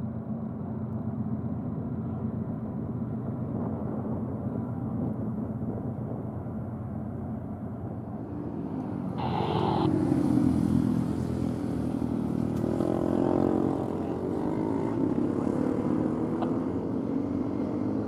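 Steady low rumble of diesel locomotives mixed with road traffic. About nine seconds in there is a brief higher-pitched burst, then the rumble grows louder with a sweeping rush as something passes close by.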